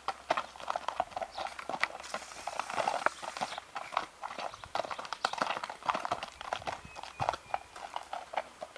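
Horse's hooves clip-clopping: an uneven run of hoofbeats, several a second, from a gelding on the move.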